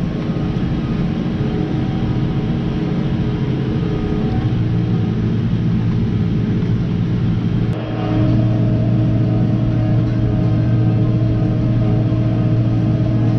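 Tractor engine running steadily under load while pulling a disc harrow through the soil, a constant drone. About eight seconds in it turns abruptly a little louder and its pitch shifts.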